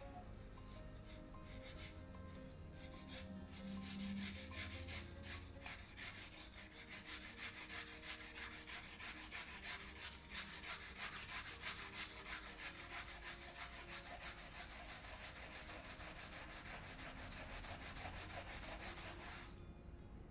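Scouring pad scrubbing the burnt, crusted bottom of a frying pan: a rhythmic back-and-forth rasp of about three strokes a second, growing steady a few seconds in and stopping suddenly near the end.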